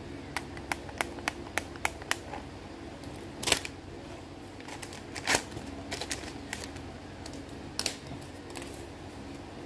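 Plastic clicks and taps from handling a COVID-19 rapid antigen test kit: about seven quick clicks as the extraction tube is capped and pressed into its holder. Three louder rustles of packaging follow as the test cassette is taken out, over a steady low hum.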